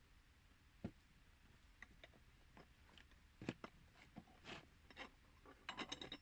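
Faint, irregular clicks and light knocks, a handful spread out and then a quick run of about five near the end.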